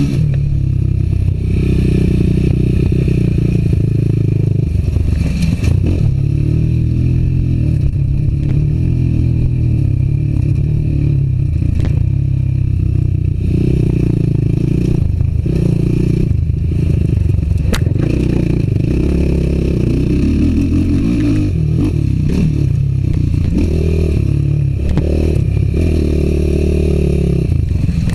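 Suzuki LT-R450 quad's single-cylinder four-stroke engine running under load, its pitch rising and falling again and again as the throttle is opened and closed, heard from the rider's seat.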